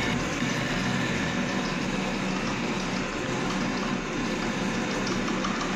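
Large lathe running steadily while a boring bar takes a light cut inside the bore of a heavy gear: an even, continuous machining noise.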